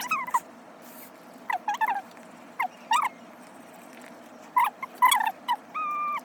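Short, high-pitched animal calls, about eight in a row, then one held, level call near the end, over a steady hiss of rain.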